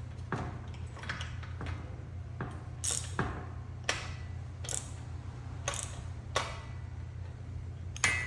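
Metal clicks, roughly one a second and irregular, as a cable-tower fly-arm attachment is cinched tight, with a steady low hum underneath.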